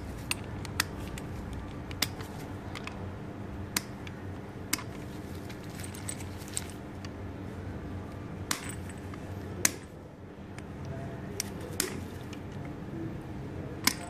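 Steel pliers clicking and tapping against the metal parts of a Master Lock combination chain lock as the chain's end fitting is worked free of the lock head. A dozen or so sharp clicks come at irregular intervals over a steady low hum.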